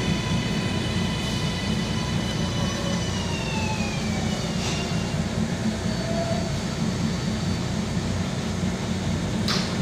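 R142 subway train slowing to a stop at the platform: its electric propulsion whine glides down in pitch and fades out about four seconds in, over a steady low rumble. A brief hiss comes near the end.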